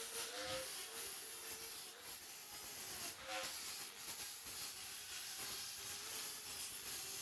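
Dremel rotary tool running at high speed: a steady high whine that wavers slightly in pitch as the bit bears on the metal, over a constant grinding hiss as it cleans rust out of a car body's windscreen pillar.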